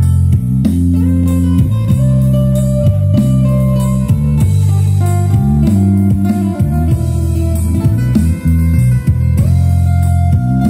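Live band playing amplified music: guitars, bass guitar and drum kit, with a melody line of long held notes that slide up and down between pitches.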